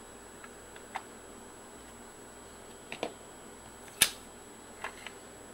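Plastic model parts being handled and set down on a workbench: a few light taps and clicks, with one sharper click about four seconds in, over a faint steady hiss.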